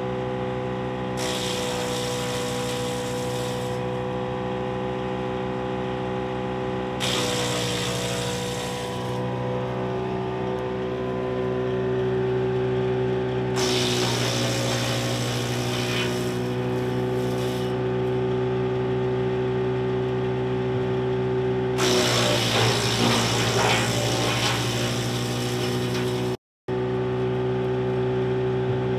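Split-Fire Model 4003 three-point-hitch PTO wood chipper running off a tractor with a steady whine. Four times it breaks into louder crunching noise as branches are fed in and chipped, the running pitch dipping slightly under the load.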